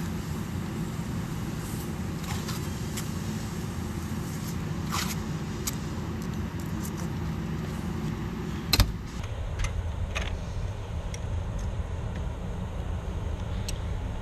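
Small metallic clicks and clacks of deadbolt and squeeze-plate hardware being handled on a metal door, over a steady low rumble. One louder clack comes about nine seconds in.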